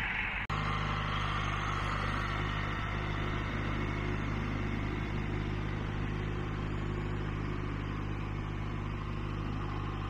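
Tractor engine running steadily at a constant speed, a low even drone with no revving.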